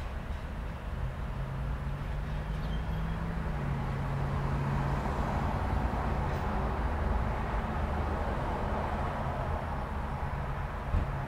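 Road traffic at a busy intersection: cars and trucks running with a steady low engine hum and rumble. The noise swells through the middle, and there is a brief knock near the end.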